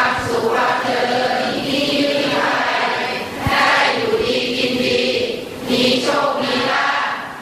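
A group of voices chanting together in unison: a Buddhist chant recited by the gathering.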